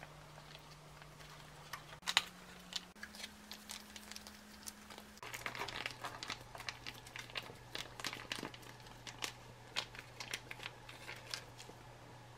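Foil retort pouch crinkling and crackling as it is squeezed and kneaded to push stir-fried kimchi out onto rice. The crinkles are sparse at first and come thicker from about halfway through.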